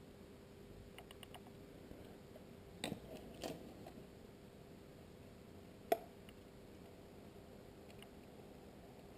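Faint clicks and small plastic handling noises of a camera module's cable connector being fitted into the board of a WANSCAM IP camera, with a cluster of knocks about three seconds in and one sharp click about six seconds in as the connector seats.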